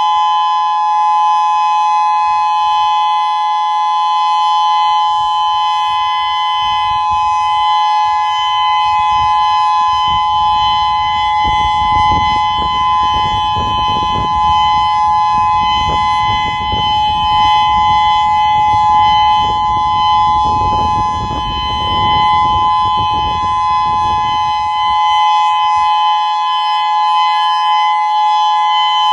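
Federal Signal Modulator 6024 electronic outdoor warning siren sounding a steady two-note tone that does not rise or fall, during a warning-system test. A low rumble comes up under it through the middle and fades again.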